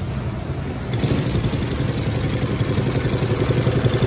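Shunfa SF-20606 two-needle walking-foot industrial sewing machine: a steady low motor hum, then about a second in the machine starts sewing a webbing strap with a fast, even mechanical clatter that keeps on.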